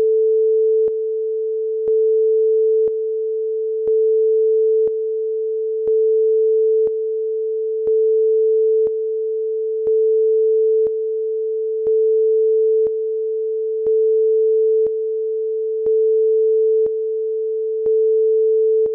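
A steady, pure, mid-pitched test tone that steps louder for one second and softer for the next, over and over, with a faint click at each step.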